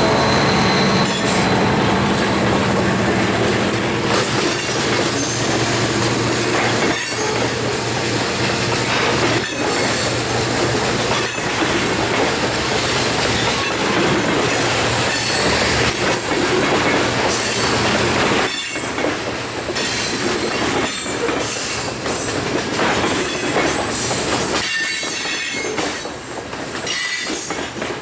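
A freight train rolling past: steel wheels squealing and clicking over rail joints in an irregular run of knocks. A low diesel drone from the locomotives is heard in the first few seconds and fades.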